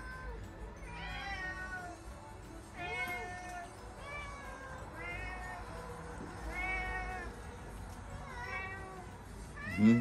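Domestic cats meowing over and over, long calls that rise and fall in pitch, one every second or two, as they beg for food. A louder meow comes near the end.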